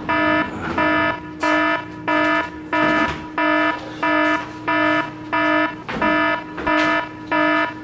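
A building fire alarm sounding: a buzzy electronic tone pulsing on and off about one and a half times a second.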